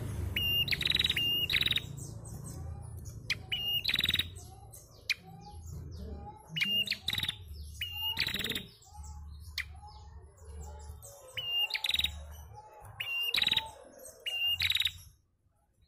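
Female prinia (prenjak) calling: bursts of short, sharp chirps mixed with louder buzzy calls, every second or two, falling silent near the end.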